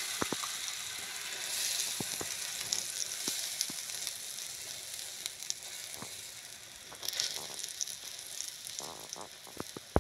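Wheat-flour and vegetable batter sizzling in hot refined oil on a flat griddle (tawa), a steady frying hiss, with scattered light clicks and taps as a spoon spreads the batter out.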